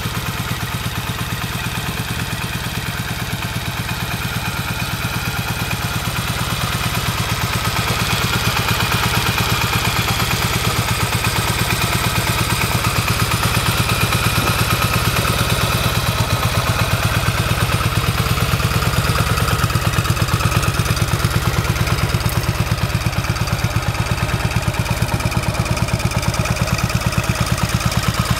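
1983 Yamaha XS650 Special's air-cooled 650 cc parallel-twin engine idling steadily through its original chrome silencers, with an even, regular exhaust beat; the seller describes it as running flawlessly.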